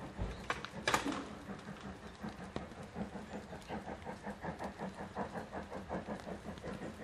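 Steam locomotive working out of sight: steady exhaust beats, about three a second, with a single sharp knock about a second in.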